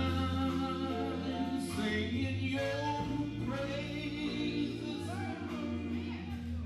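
Male gospel quartet singing live: a lead voice over sustained backing harmonies from the other singers, changing notes slowly.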